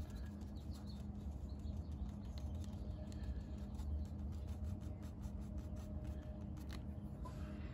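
Soft, irregular ticks and scratches of a fine watercolour brush dabbing small strokes onto paper, over a steady low room hum.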